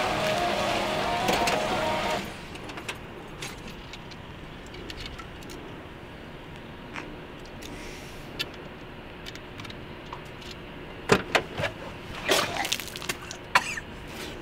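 A louder sound with a held tone cuts off abruptly about two seconds in, leaving a quiet steady background. Near the end come several sharp clicks and knocks as a sedan's driver door is unlatched and swung open.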